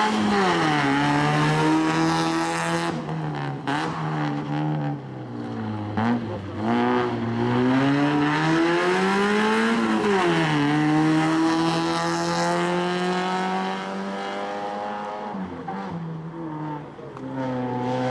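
Mazda 323 rally car's engine driven hard through a tight tyre-marked sprint course. Its pitch climbs and then drops sharply several times as the car accelerates and slows for the chicanes, and the sound grows fainter near the end as the car pulls away.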